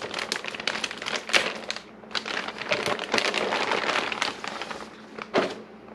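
Plastic packaging and parts bags rustling and crinkling as they are handled, in quick irregular crackles with a short lull about two seconds in.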